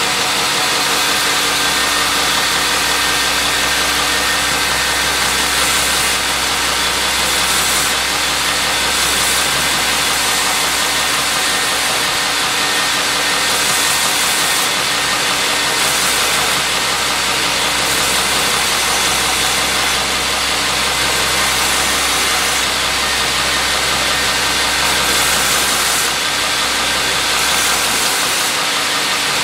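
Belt grinder running steadily with a constant motor hum. A leather knife sheath is pressed against the moving belt in repeated passes, adding a higher hiss that comes and goes every second or two.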